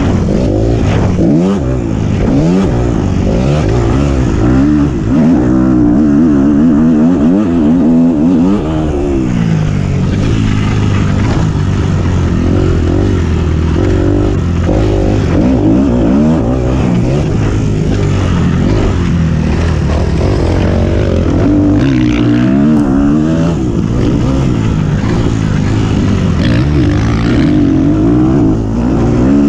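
Single-cylinder four-stroke motocross bike engine being ridden hard, its pitch rising and dropping again and again as the throttle is opened and shut and the gears are changed.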